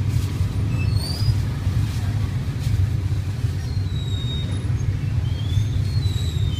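Steady low rumble of street traffic, with a few faint, short high chirps now and then.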